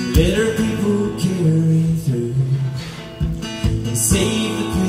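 A man singing while strumming a steel-string acoustic guitar, performed live through a vocal microphone.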